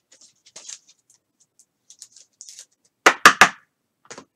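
Light rustling and ticks of trading cards being handled, then three quick, loud knocks about three seconds in and a softer one near the end, as a hand sets down and presses a thick card on the tabletop.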